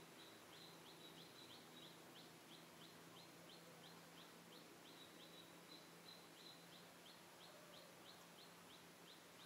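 Near silence, with faint high chirps repeating steadily about three times a second in the background.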